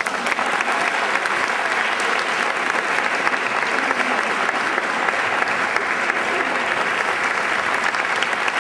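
Audience applauding, many hands clapping, breaking out suddenly and holding steady.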